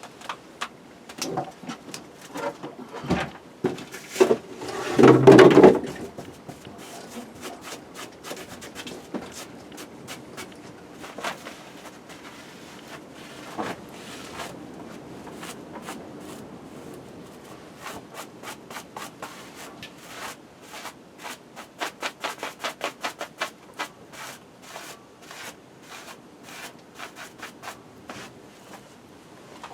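Objects being handled and moved about: irregular rubbing, scraping and clicking, with a louder cluster of knocks about five seconds in.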